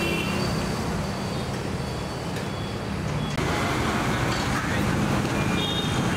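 Steady roadside traffic noise with faint background chatter; the background changes slightly about halfway through.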